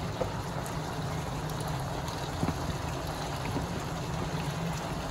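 Chicken pieces in sauce frying steadily in a non-stick pan, with a low hum underneath and a couple of soft taps as chopped vegetables are slid in from a plastic tray.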